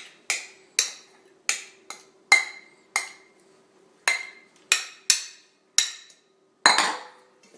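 A metal spoon knocking against the bowls as diced avocado is scraped out of a small ceramic bowl into a stainless-steel mixing bowl. About a dozen sharp clinks come roughly two a second, each with a short metallic ring, and the loudest knock falls near the end.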